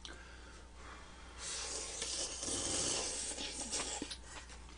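Glass noodles slurped into the mouth in one long noisy suck, starting about a second and a half in and lasting about two and a half seconds.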